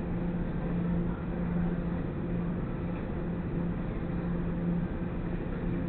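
A steady low mechanical hum over even background noise; its low tone fades in and out every second or so.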